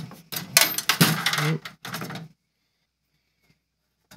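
Sheet-metal clatter and knocks of a computer power supply being set into a steel PC case, cutting off abruptly about two seconds in.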